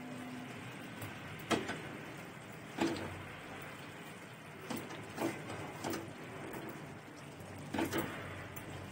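A spoon stirring stew in a metal kadhai, knocking and scraping against the pan: about seven separate, irregular clinks over a faint steady hiss.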